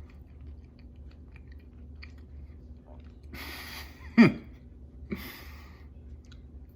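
A person chewing a mouthful of soft grilled pastry, with small wet mouth clicks. About halfway through come a breath, then a short, loud "mm" of enjoyment that falls in pitch, then another breath.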